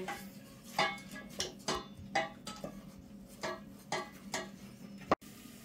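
Wooden spoon knocking and scraping against a stainless-steel pot while stirring chopped onions in oil, about ten irregular knocks, each ringing briefly.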